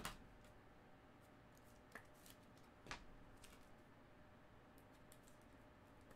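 Faint clicks and light plastic scrapes of trading cards being handled and slid into rigid plastic toploaders, with a louder click at the start, another about two seconds in and a third about three seconds in.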